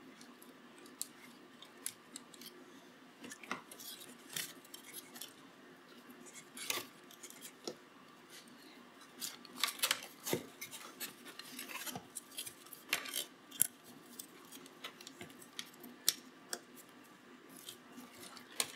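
Hands handling a plastic head frame and its ribbon cables and connectors: scattered clicks, taps and rustles, busiest in the middle of the stretch.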